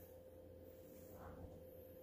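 Near silence: room tone with a faint steady hum.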